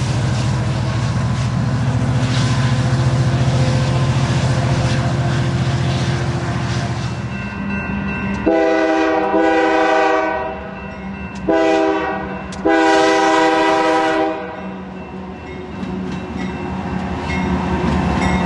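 Diesel locomotive engine drone as a passenger train runs by. Then a Union Pacific freight locomotive sounds its air horn for a grade crossing, a long blast, a short one and a long one, followed by the rising rumble of its diesel engines as the lead units pass.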